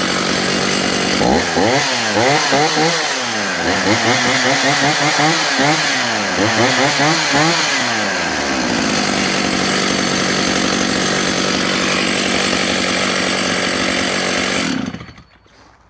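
Stihl 032 AVE chainsaw's 51cc two-stroke engine idling, then blipped up and down several times, dropping straight back to a steady idle each time. It idles steadily again before being switched off suddenly near the end.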